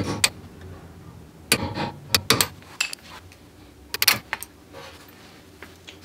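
Light metallic clinks and taps in a few short clusters as a screwdriver works at the pad retaining hardware of a BMW F80 M3's rear brake caliper.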